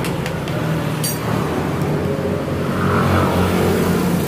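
An engine running steadily, its pitch rising about three seconds in, with a single sharp metallic clink about a second in.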